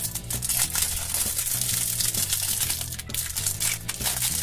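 Clear plastic wrapper crinkling and rustling as a stack of sticker sheets is unwrapped by hand, with background music running underneath.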